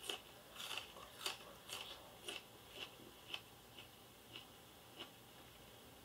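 Faint, crisp crunches of raw onion being chewed, about two a second, spacing out and softening toward the end.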